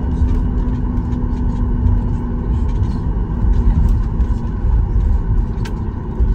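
Cabin noise of a Boeing 737 MAX 8 taxiing: a steady rumble from the tyres rolling over the taxiway and the CFM LEAP-1B engines at taxi power, with a steady hum under it. One sharp click near the end.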